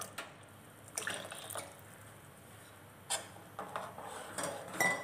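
Metal ladle stirring freshly added water into a thick lima-bean gravy in a pan: a few short scrapes and wet sloshes, with quiet stretches between.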